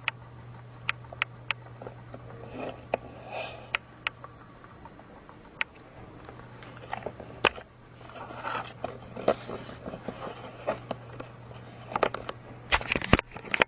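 Scattered sharp clicks and light scraping over a steady low hum, ending in a quick cluster of louder clicks.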